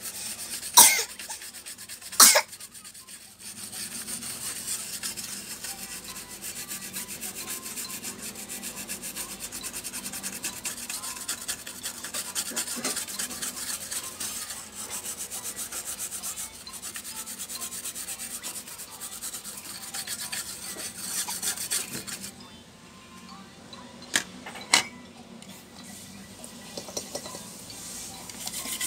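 A small brush scrubbing rapidly back and forth over the bare circuit board of a graphics card, a steady hissy rasp that eases off about three quarters of the way through. Two sharp clicks come near the start and two more near the end.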